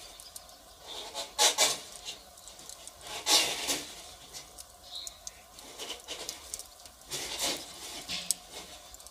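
Firewood fire crackling: irregular snaps and pops, the loudest about one and a half and three and a half seconds in.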